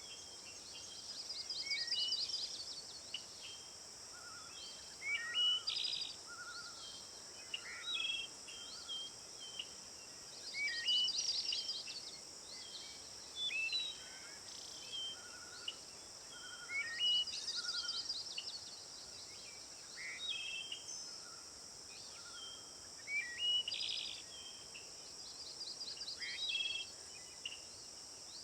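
Several songbirds calling outdoors: many short chirps and whistles, with a rapid trill that comes back about every six to eight seconds. Under them runs a steady, high-pitched insect drone.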